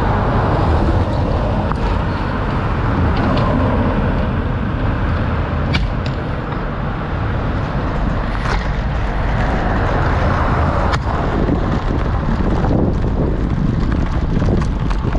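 A road bike rolling over a cobbled street, with a steady rumble and wind on the action-camera microphone, and a few sharp clicks and rattles.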